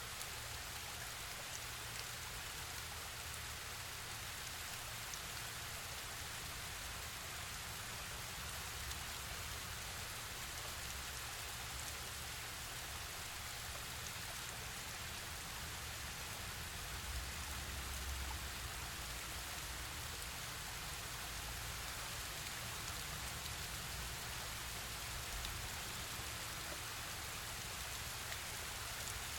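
Waterfall water falling and splashing: a steady, even hiss of rushing water, with an uneven low rumble underneath.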